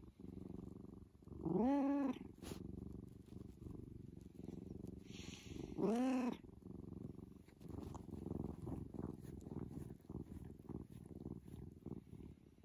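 A just-woken tabby cat purring steadily, with two short meows, each rising then falling in pitch, about two seconds and six seconds in.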